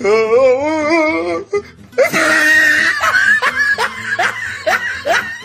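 Comic laugh soundtrack laid over the clip: a long warbling, wavering voice for about a second and a half, then a stretch of laughter in short rising bursts.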